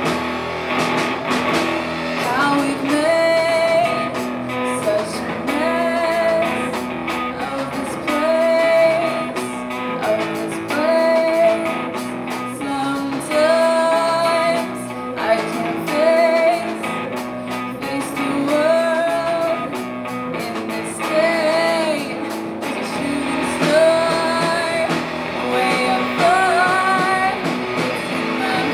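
Live rock band: a woman singing lead, holding her notes with vibrato, over electric guitars and drums.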